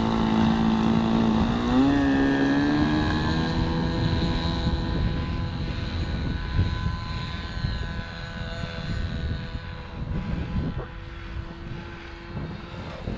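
Nexstar Select RC trainer plane's nitro glow engine running at a steady pitch, then throttling up about two seconds in for the takeoff. The higher pitch holds while the sound fades steadily as the plane rolls away and climbs out.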